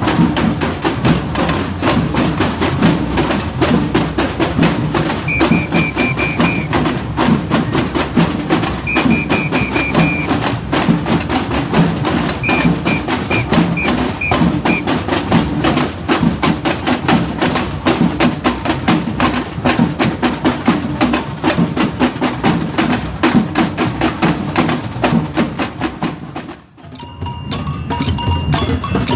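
Samba percussion band playing a fast batucada: surdo bass drums, snare drums and high hand percussion in a dense, driving rhythm. Three short bursts of a high, pulsing tone sound over the drums in the first half. Near the end the drumming drops out for a moment, then starts again.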